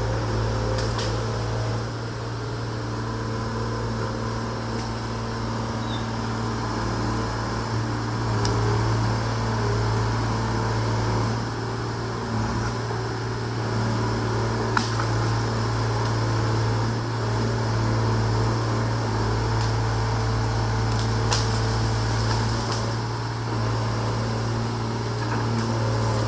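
125B excavator's diesel engine running steadily at an even speed, with a few sharp clicks or knocks over it.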